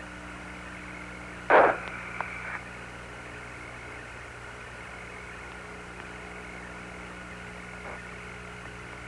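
Open Apollo 17 air-to-ground radio channel with no one talking: a steady hiss with a low hum. About one and a half seconds in, a short loud burst of static breaks it, trailed by a faint thin tone for about a second.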